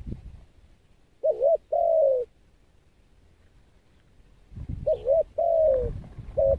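Spotted dove cooing: two phrases about three seconds apart, each a short wavering coo followed by a longer coo that falls slightly. The second phrase has a low rumble under it and a short extra note at its end.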